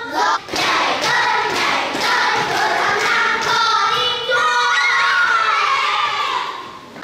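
A classroom of young children shouting, laughing and calling out together as they rush about at play. One voice rises above the crowd a little after four seconds in, and the noise dies down near the end.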